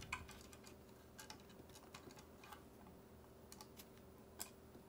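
Near silence broken by faint, scattered small ticks and clicks as small screws are taken out of a GPU water block and set down, with a slightly louder click near the end.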